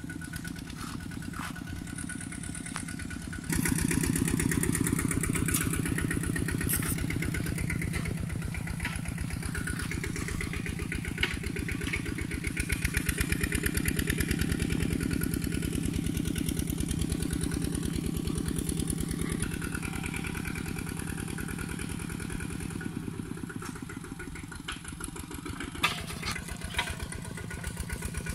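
Engine of a two-wheel walking tractor running steadily as it ploughs the field, with a fast, even thud; it gets suddenly louder about three and a half seconds in.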